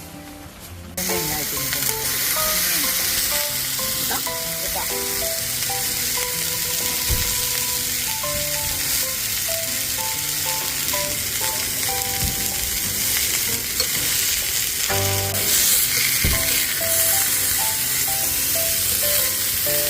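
Food sizzling and frying in a hot pan, a steady loud hiss that starts abruptly about a second in, with a light background melody over it.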